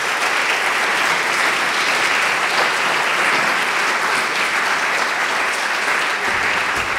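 An audience applauding, a steady clapping of many hands throughout.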